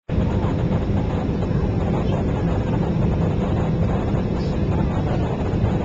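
Steady airliner cabin noise in flight: the even rush of the jet engines and airflow, heaviest in the low range, with a faint steady hum.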